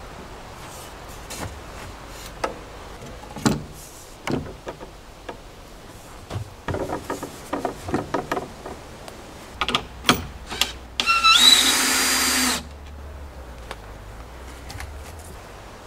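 Heavy wooden beams knocked, shifted and clunked into place by hand, a run of irregular knocks and scrapes. About eleven seconds in, a power tool runs briefly for about a second and a half, its pitch rising as it spins up.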